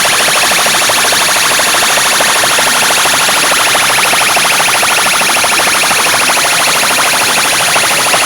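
Very loud DJ sound system blasting, harsh and distorted, with a dense rapid pulsing that goes on without a break.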